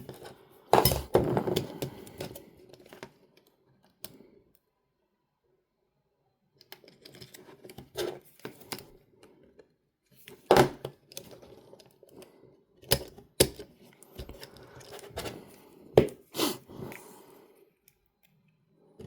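Irregular sharp clicks, taps and handling noise from the small plastic and metal parts of a portable minidisc player being worked on by hand, with a pause of a couple of seconds near the start before the clicking resumes.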